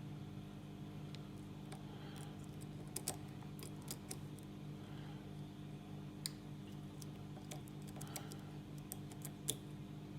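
Faint, irregular small clicks and ticks of a lock pick and tension wrench working the pins of a Master Lock 410 lockout padlock, a few louder clicks among them, over a steady low hum.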